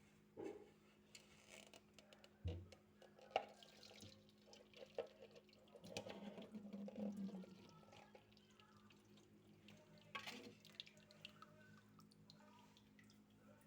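Faint kitchen handling sounds: scattered light clicks and knocks, with a short stretch of water noise about six seconds in.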